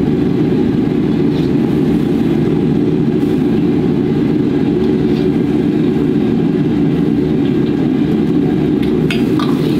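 Commercial gas wok burner running at high flame under a wok of water: a loud, steady, low rush with no break.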